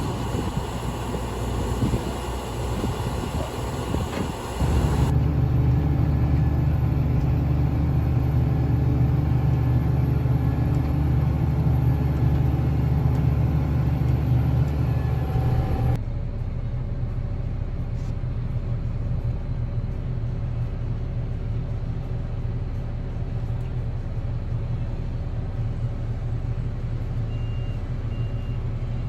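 Engines of heavy farm machinery running steadily, the sound changing abruptly about five seconds in and again about halfway through as one shot cuts to the next. Two short high beeps near the end.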